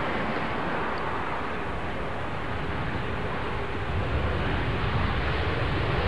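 Boeing 787 Dreamliner's jet engines running as the airliner rolls along the ground: a steady rumble and rush that gets a little louder and deeper about four seconds in.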